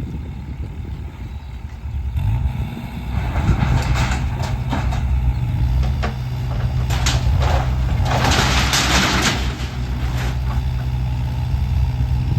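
Kubota excavator's diesel engine running with a steady drone that picks up about two seconds in, while the tornado-damaged shed is torn down: irregular crunching and sharp cracks of breaking debris, the longest and loudest crash about eight seconds in.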